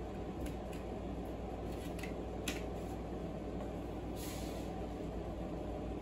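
Steady drone of an air conditioner and fan. Over it come a few light clicks of oil pastels being handled, the sharpest about two and a half seconds in. About four seconds in there is a brief scratchy rustle.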